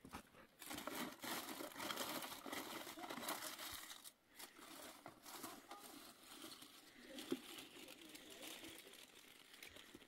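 Faint footsteps scuffing and crunching on dry, stony dirt, fading after about four seconds.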